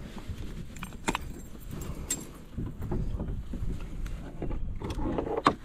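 Light metallic clicks and jingles of a spinnerbait's blades and hook as it is worked out of a largemouth bass's mouth, with a few sharp clicks about a second in, about two seconds in and, loudest, near the end, over a low rumble of handling.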